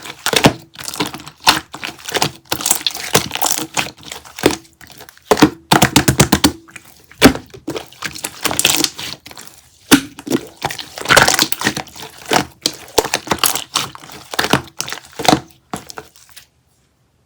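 Close-up crackling and crinkling with many sharp clicks and taps, including a quick run of clicks about six seconds in; it stops suddenly near the end.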